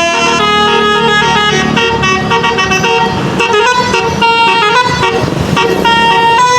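Basuri 'telolet' multi-tone bus horn playing a tune of stepped notes, loud. In the middle the notes thin out into a rougher, noisier stretch before the horn tones return.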